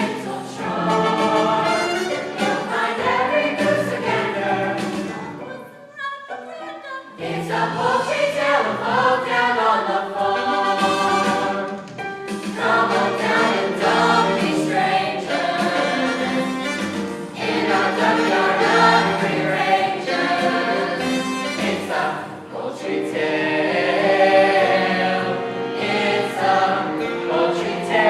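Group of voices singing a stage-musical number together, with a short break about six seconds in.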